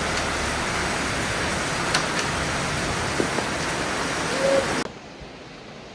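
Steady rain, an even hiss, which cuts off suddenly about five seconds in, leaving only quiet room tone.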